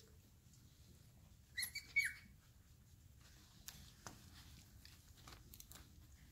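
Four-and-a-half-week-old Airedale Terrier puppies playing: two short, high squeals about two seconds in, then faint scattered clicks and scuffles as they tussle.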